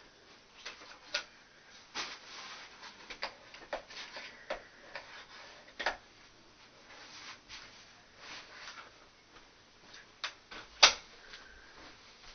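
Seats of a Kolcraft Contours tandem stroller being taken off and turned around on the frame: scattered clicks and knocks of the seat fittings, with one sharp knock near the end.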